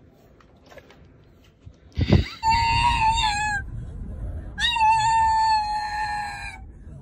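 A pug gives two long, high-pitched whining howls, the second one longer, over the low rumble of a moving car's cabin. A brief low thump comes just before the first howl.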